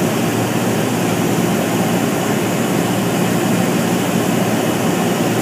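Light airplane's piston engine and propeller running steadily, heard inside the cockpit as a constant drone.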